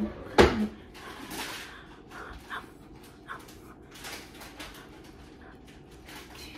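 Woman making short whiny, frustrated grunts and whimpers, acting out a fussing child, with a sharp thump about half a second in.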